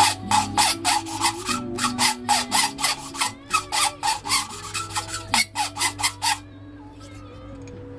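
Engine valve being hand-lapped into its seat with lapping paste: the valve is twisted back and forth on a stick between the palms, giving a gritty rasping scrape about three strokes a second, which stops about six seconds in.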